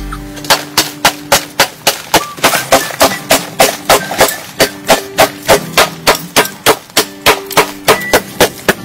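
Rapid, evenly paced hoe strikes into packed soil, about three or four a second, as two diggers work the pit. Background music with held notes plays under them.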